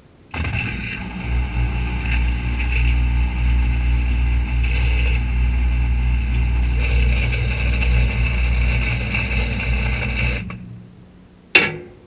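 Whirlpool WTW4900BW impeller washing machine's motor running with a steady low hum. It starts abruptly just after the start, cuts off about ten and a half seconds in, and is followed by a single sharp click near the end.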